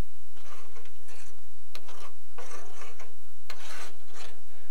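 A hand-held painter's paint scraper pushed across a metal Jeep grille, lifting off paint softened by chemical stripper and scraping it down to bare metal, in several separate scraping strokes with small clicks between them.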